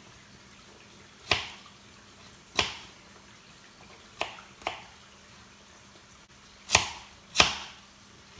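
Kitchen knife chopping cabbage on a cutting board: six slow, unevenly spaced cuts, each a sharp knock that fades quickly.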